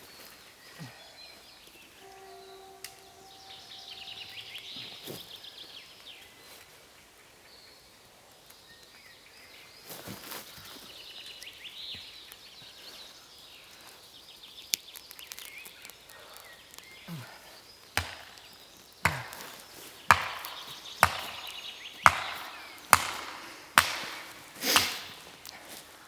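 Firewood being chopped by hand: after some quieter rustling, a run of about eight sharp strikes into wood, roughly one a second, in the second half.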